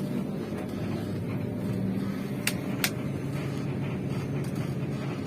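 Vehicle engine running steadily with a low hum. Two sharp clicks come in quick succession about two and a half seconds in.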